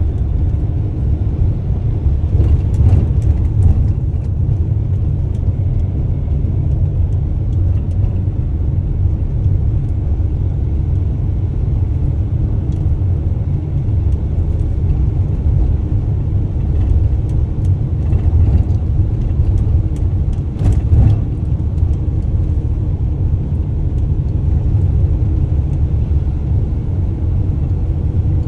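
Delivery van driving: a steady low rumble of engine and road noise, with short bursts of clicking or rattling a few seconds in and again about two-thirds of the way through.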